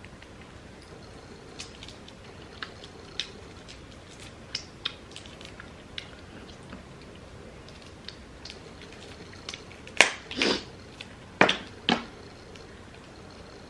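Hands picking apart a seafood boil: scattered small clicks and cracks of crab and shrimp shells, with a few louder sharp cracks about ten seconds in.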